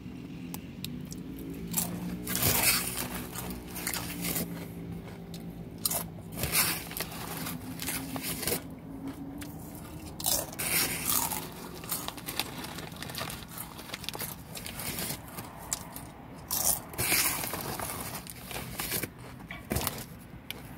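Chips dipped in a creamy dip, bitten and chewed close to the microphone: loud crunches in bursts every few seconds, with quieter crackly chewing in between.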